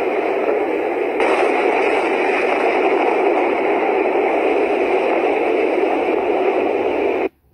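Steady rushing noise like static, the same all through, with no voice or rhythm in it. It starts abruptly, grows a little brighter about a second in, and cuts off suddenly near the end.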